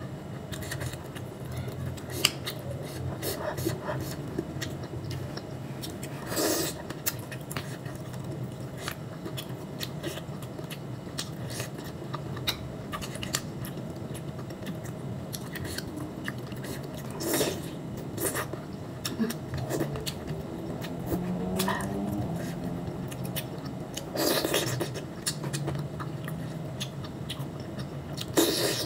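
Close-up eating sounds of green mussels in Padang sauce being sucked from their shells and chewed: many small mouth clicks and smacks, with about four louder slurps spread through.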